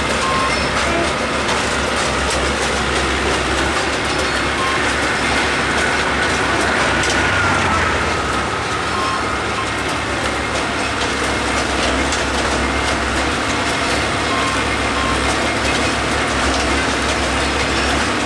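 Engine of a small self-propelled on-track maintenance machine running steadily as it rolls slowly along the rails, with a faint whine that falls in pitch about six to eight seconds in.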